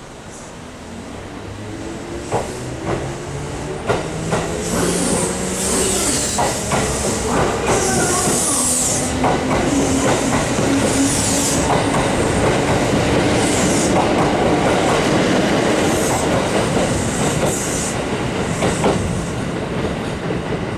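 Kintetsu 2430-series electric train pulling out and accelerating past. Its motor hum climbs in pitch in steps, the wheels clack over the rail joints at a quickening rate, and hissing squeals come and go.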